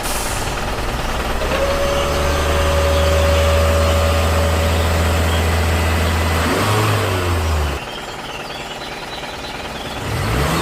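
A vehicle engine running steadily, shifting pitch about two-thirds of the way through, cutting out abruptly, then revving up again near the end.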